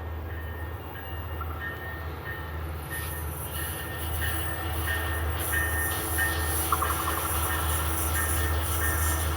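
Passenger train arriving: a steady low diesel locomotive engine rumble, with wheel and rail noise building from about three seconds in as the train draws closer and grows louder.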